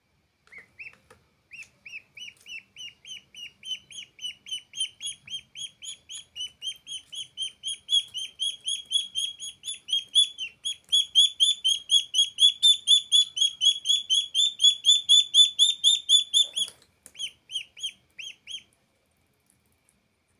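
Duckling peeping: a rapid, steady train of short high peeps, about five a second, growing louder. A single sharp knock interrupts it late on, a few more peeps follow, then it stops.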